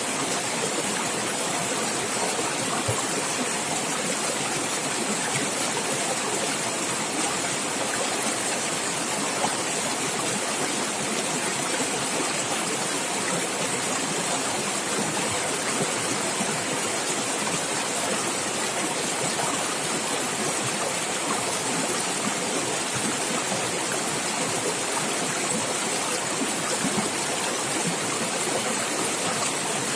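Running water gurgling and splashing in a steady, unbroken rush.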